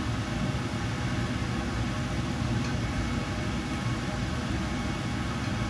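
Steady low hum and hiss of kitchen background noise at a gas stove.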